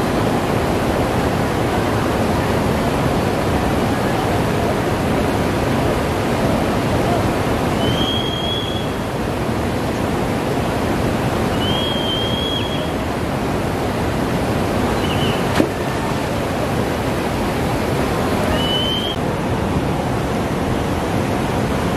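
Fast river current rushing over rocks in a steady, loud wash of water noise. Four short high whistles come through it, and there is one sharp click.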